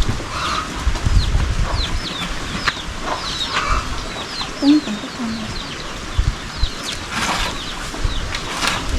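Chickens at a small coop, with many short, high, falling chirps throughout and a couple of brief lower clucks about five seconds in.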